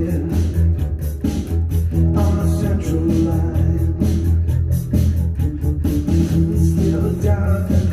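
Electric bass guitar playing a steady rock bass line, its low notes heavy under a full-band backing with drums hitting in a regular beat.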